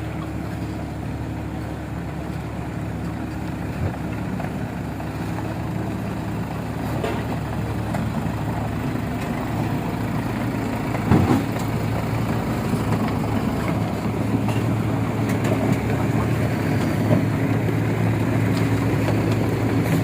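Diesel truck engine running steadily at low revs, slowly getting louder, with a brief louder moment about halfway through. The truck is grounded in soft mud.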